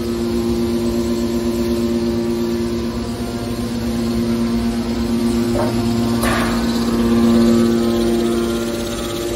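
Steady hum of a hydraulic metal baler's electric motors and hydraulic pumps running, with a couple of brief knocks about six seconds in.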